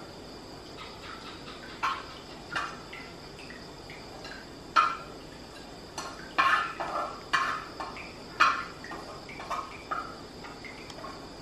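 Metal utensil scraping and knocking against a wok as stir-fried food is scraped out onto a plate, in irregular strokes, over a steady high background tone.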